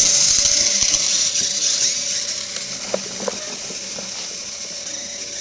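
Small wheeled robot's geared drive motors whirring with a high-pitched whine as it drives, fading as it moves away. A couple of light clicks about three seconds in.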